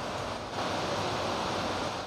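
A steady rushing hiss with no clinks or knocks, a little louder from about half a second in.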